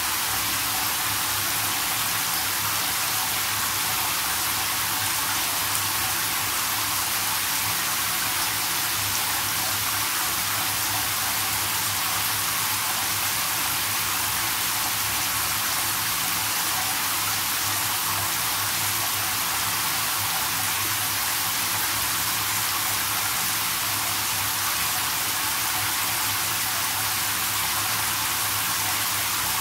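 Water spraying from a shower head into a whirlpool bathtub as it fills: a steady, even hiss of spray falling on the tub floor.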